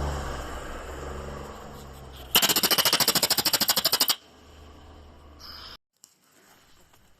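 Japanese weasel giving a rapid, loud chattering call, about ten sharp notes a second for roughly two seconds: a warning call. It comes over a low steady rumble, which continues faintly after the call and then cuts off abruptly.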